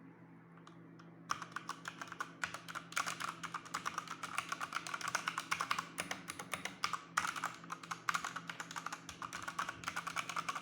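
Fast typing on a Pichau P731 mechanical keyboard with Cherry MX Red linear switches: a dense, rapid run of key clacks that starts about a second in.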